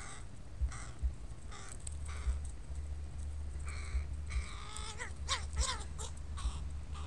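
Young crows calling: a run of short, harsh caws that crowds into a quick burst of rising-and-falling calls about two-thirds of the way through.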